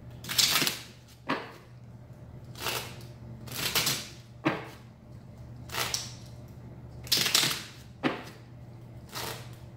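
A deck of regular playing cards being shuffled by hand, in about nine short bursts of flicking card noise roughly a second apart, some opening with a sharp snap.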